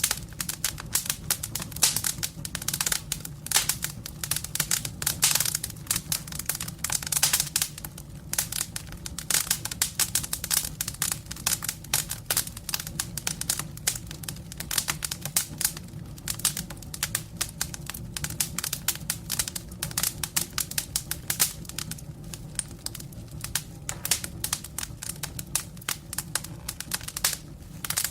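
Campfire crackling: a dense, irregular run of wood snaps and pops, some louder than others, over a steady low hum.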